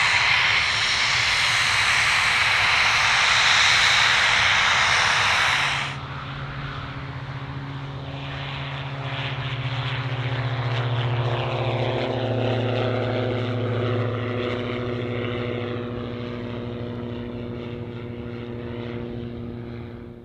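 Light propeller aircraft at full power passing close, a loud engine and propeller noise that stops abruptly about six seconds in. A piston-engine propeller plane takes over, droning steadily with a slight shift in pitch, and slowly fades near the end.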